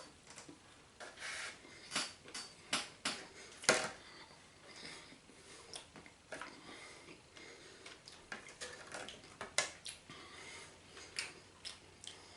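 Knife and fork clinking and scraping on a plate in short, irregular clicks as a chicken steak is cut and eaten, one sharper clink a little under four seconds in.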